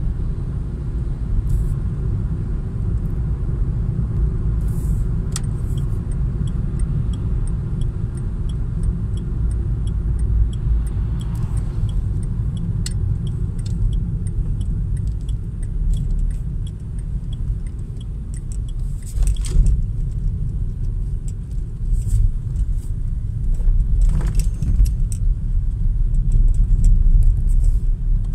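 Inside a car while driving: a steady low rumble of engine and tyres on the road. A light, regular ticking, under two a second, runs for several seconds in the first half, and a few knocks and rattles come later.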